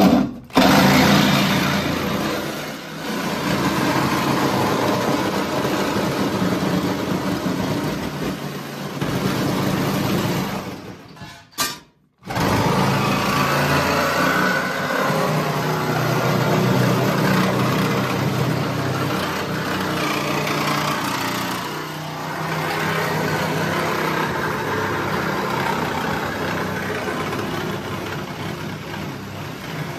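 Reciprocating saw (Sawzall) cutting across the rusty steel floor pan and driveshaft tunnel of a 1969 Pontiac Trans Am. It runs steadily, stops briefly about twelve seconds in, then carries on cutting.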